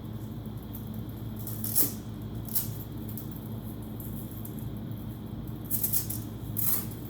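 Velcro tabs and nylon fabric of a rolling backpack being handled and fastened: several short scratchy rips and rustles, the loudest about two seconds in, over a steady low hum.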